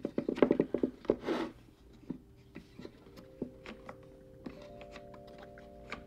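Wooden parts of the Stickman 34 mechanical puzzle box clicking rapidly for about a second as a piece is turned, then a short scraping slide. After that come soft, scattered wooden ticks under quiet background music with held notes.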